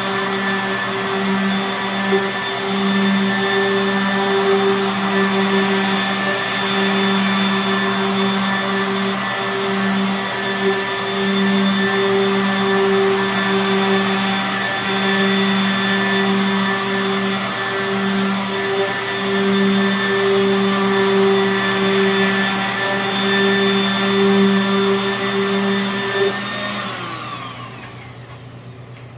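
Random orbital sander running steadily as it is worked across the grain of walnut veneer in a flattening pass; near the end it is switched off and its whine falls away as it spins down.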